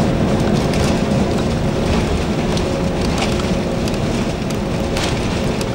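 Cabin noise of an Airbus A330-200 rolling on the ground after landing: a steady low rumble from the wheels and the Rolls-Royce Trent 700 engines, with a faint steady hum and scattered light rattles. The noise eases a little as the aircraft slows.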